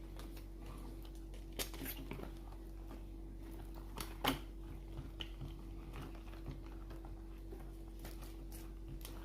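Quiet hand-handling sounds: a few faint, scattered clicks and light rustles as the nylon patch is set onto the torn sleeve on a tabletop, over a steady low electrical hum.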